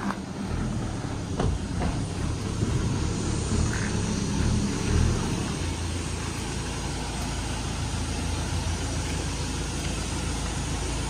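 Flatbed tow truck's engine running as it drives off with a car loaded on its deck: a steady low rumble.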